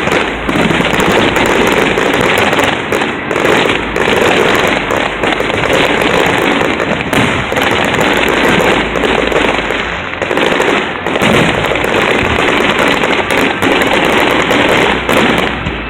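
Fireworks display going off in a continuous barrage, bangs and crackle following one another too fast to separate.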